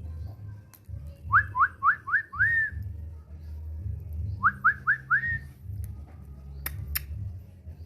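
Indian ringneck parrot giving two quick runs of short, rising whistled notes, five and then four. Near the end come two sharp clicks.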